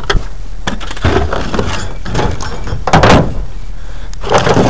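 Scrap junk being dumped out of a truck bed: a run of knocks, thuds and clattering crashes, the loudest about three seconds in and another near the end, over a steady low hum.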